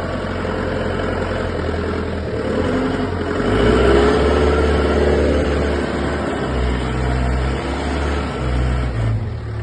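Forklift engine running under work, revving up about three and a half seconds in and settling back down a couple of seconds later.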